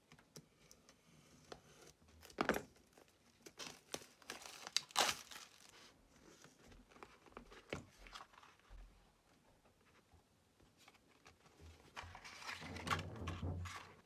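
The packaging of a new hardcover notebook is cut open with scissors and pulled off, giving a series of sharp crackles. They are busiest a few seconds in, and there is a denser stretch of crinkling near the end.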